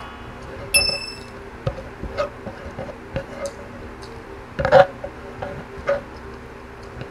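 Close-miked mukbang eating sounds: chewing, lip smacks and wet mouth clicks as food is eaten by hand, loudest a little past halfway when fingers are sucked clean. About a second in, a bright ringing chime sound effect plays.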